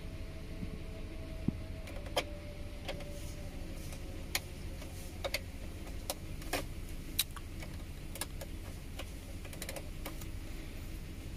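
Steady low hum of a car idling, heard inside the cabin, with about a dozen light, sharp clicks scattered through it as a USB cable and phone are handled at the armrest's rear USB port.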